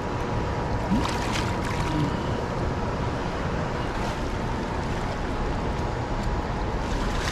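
Steady rushing of a river's current over rocky shallows.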